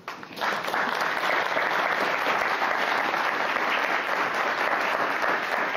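Audience applauding, rising about half a second in and then holding steady.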